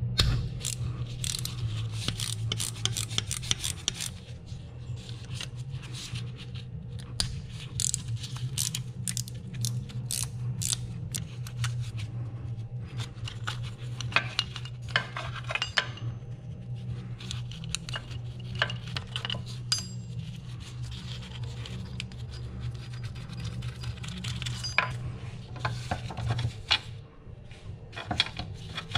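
Metal hand tools clicking, clinking and scraping against the car's underside as sensors and bolts at the rear differential are undone with a 10 mm wrench, in irregular sharp clicks over a steady low hum that stops near the end.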